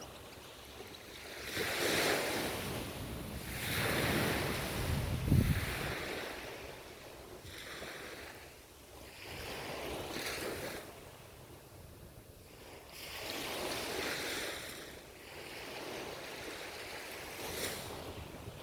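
Ocean waves breaking and washing ashore in repeated surges a few seconds apart, each swelling and fading away. A short low thump comes about five seconds in.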